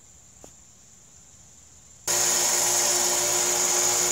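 A faint steady hum with a light tick about half a second in. About two seconds in, a small electric bench belt grinder comes in suddenly and runs loud and steady while the steel adze blade is ground on it.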